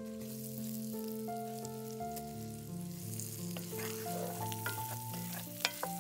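Sliced onions sizzling in butter and olive oil in a cast-iron skillet as a spoon stirs them, with a few sharp clicks of the spoon against the pan in the second half, the loudest about a second before the end. Soft background music plays underneath.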